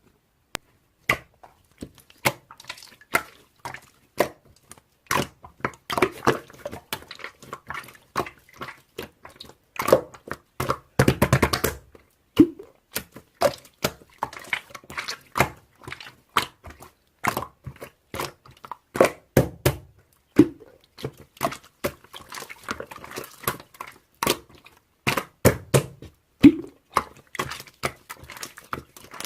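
Irregular close-up clicks and taps, a few a second, with a denser stretch of them about eleven seconds in.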